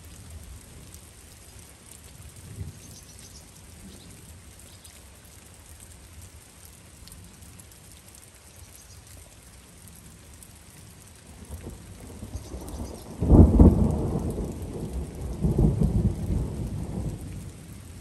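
Thunder breaking suddenly about thirteen seconds in and rumbling for about four seconds, swelling again once before it fades. Under it, steady light rain.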